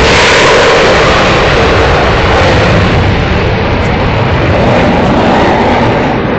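Loud jet roar from an F-15 fighter's twin engines as it pulls away from the crowd after a high-speed pass. The roar slowly fades and loses its high end toward the end.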